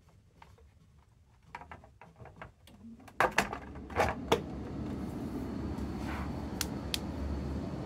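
Plastic clicks of a condensate pump's float switches being worked by hand, then about three seconds in a steady electric motor whirr starts and runs until it cuts off suddenly just before the end.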